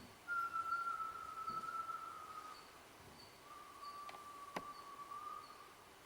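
Long whistled notes, three in a row, each held and slowly falling in pitch. There are two sharp clicks near the middle and a faint high chirp that repeats about every 0.7 s.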